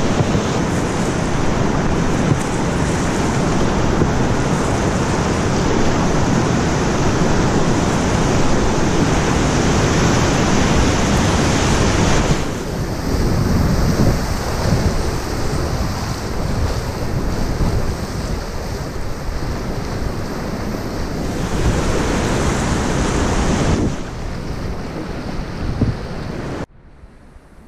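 Whitewater rapids rushing and splashing around a canoe's bow, loud and steady. The sound shifts abruptly a few times and drops sharply near the end to a much quieter flow of water.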